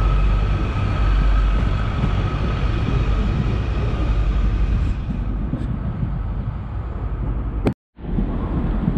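Transport for Wales diesel multiple unit running out past the platform: a steady rumble with a high whine over it, which thins and fades after about five seconds. Near the end the sound cuts off for a moment with a click, and another train's rumble takes over.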